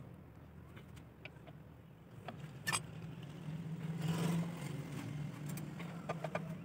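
A few sharp metallic clinks of spanners and a bar against a Fiat 640 tractor's flywheel and clutch. Behind them a steady low engine hum from a motor vehicle swells to its loudest about four seconds in.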